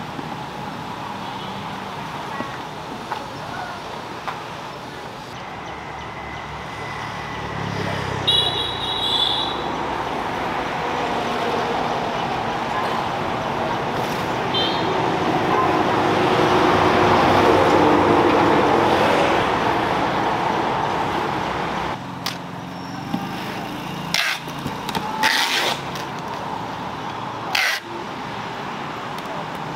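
Street traffic of motorbikes and cars, a steady rush that swells for a few seconds in the middle. In the last several seconds, sharp knocks and clatter from parts and boxes being handled close by.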